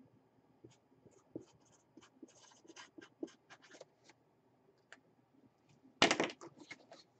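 Felt-tip marker writing on a cardboard box lid: a run of short scratchy strokes. About six seconds in comes a louder scrape lasting about a second as the box is moved on the table.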